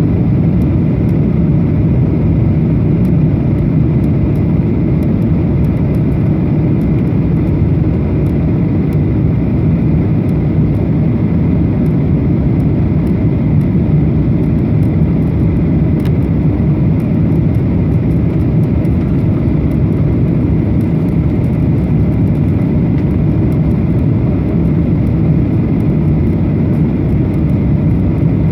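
Steady cabin noise inside a Boeing 737-800 airliner: a constant low rumble of engines and airflow, with no distinct events.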